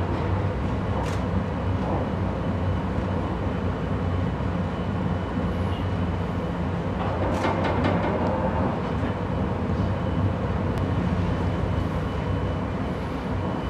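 Restored mid-century electric streetcar running along its track, heard from inside the car: a steady rumble of steel wheels on rail with a low motor hum, and a couple of sharp clicks about a second in and again about seven seconds later.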